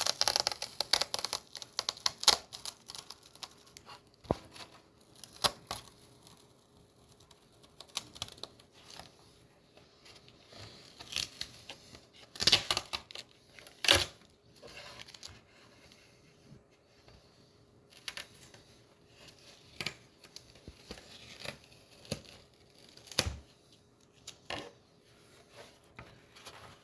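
Adhesive tape being peeled off a plastic (ABS) scooter body panel in short, irregular rips, with crinkling of the stripped tape and a few sharp clicks as the panel is handled.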